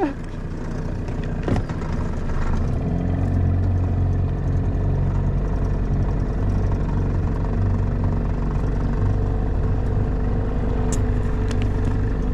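Boat's outboard motor running under way, throttled up over the first few seconds and then holding a steady speed. A brief knock about a second and a half in.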